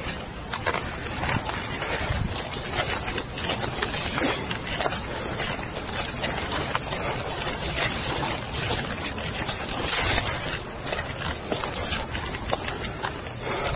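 Footsteps crunching and rustling through dry leaf litter and underbrush, a dense, irregular crackle of many small snaps.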